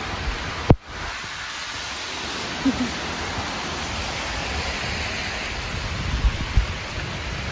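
Steady hiss of heavy rain and wind in a tropical-storm downpour, with low thumps of wind on the microphone late on. A single sharp knock just under a second in is the loudest sound.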